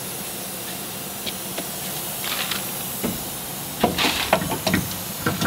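Steady hiss with scattered light metal clicks, then a denser run of clinks and knocks from about four seconds in, as the transmission mount and its bolts are handled and fitted by hand.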